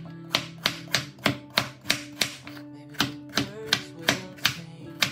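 A crinkle-cut knife chopping carrots on a wooden cutting board: sharp knocks about three a second, with a short pause about halfway through, over background music.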